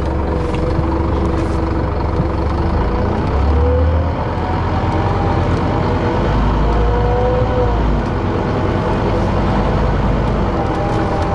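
Interior of a moving city bus: a steady low engine drone with road noise, and a thin whine that rises and falls as the bus changes speed.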